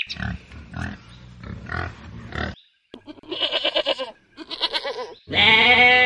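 Wild boar piglets grunting softly for the first couple of seconds. Then, after a short break, a goat kid bleats: two shorter calls, then a loud, long one near the end.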